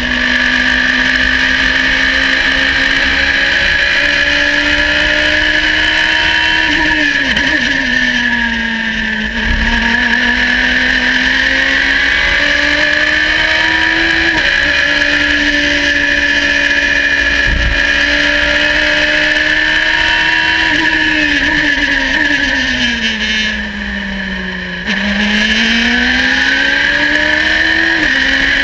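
Radical race car's engine at high revs from onboard, its note rising and falling with the throttle and stepping at gear changes. Near the end the revs sink and the sound drops briefly as the driver brakes and lifts off, then climbs again under acceleration.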